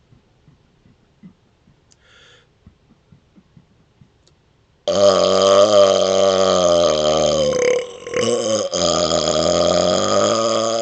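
A man gulps air in small, faint swallows, then lets it back up as one long, loud burp on a wavering pitch. The burp starts about halfway in, falters briefly partway through, and carries on nearly to the end.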